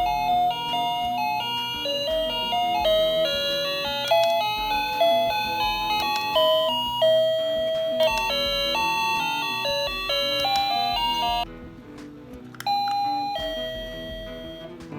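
Wireless doorbell receiver playing an electronic chime melody, one note after another. The tune stops about eleven seconds in, and after a short break a few more notes sound.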